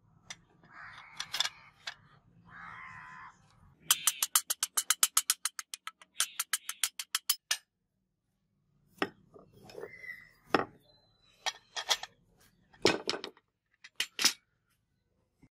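Wooden grip block and brass guard pieces handled and fitted onto a steel sword tang on concrete: two short scrapes, then a fast run of sharp clicks for about three seconds, then scattered knocks and clinks.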